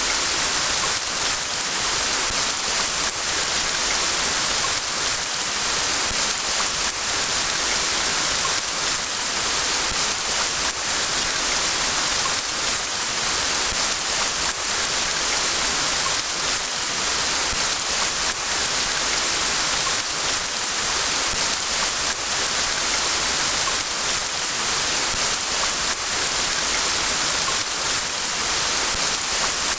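Steady rain: a dense, even hiss made up of countless fine drop patters.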